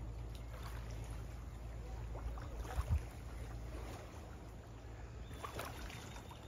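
Faint riverside ambience: a low steady rumble, fading somewhat about halfway through, with light water sounds over it.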